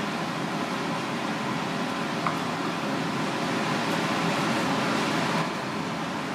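Steady fan-like hiss of kitchen ventilation, with one brief click a little over two seconds in and the hiss a little louder from about four seconds until it drops back near the end.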